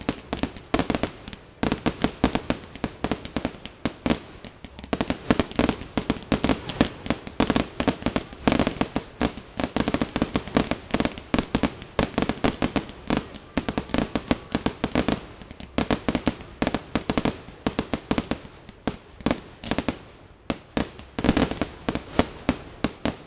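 Aerial fireworks going off in a rapid, continuous string of bangs and cracks as they fire and burst, with a few short lulls.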